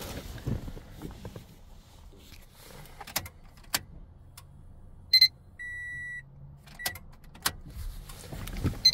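Key clicking in the ignition of a 2013 Scion FR-S, turned to on without starting the engine so the fuel pump primes, with a faint low hum through the middle. The dash gives a short electronic chime about five seconds in, then a steady beep of about half a second, and another short chime at the end.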